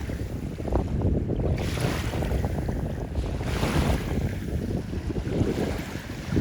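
Strong wind buffeting the microphone in uneven gusts, a low rumbling rush that rises and falls.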